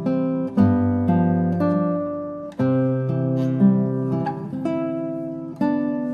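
Background music: an acoustic guitar playing strummed chords, with a new chord about every second.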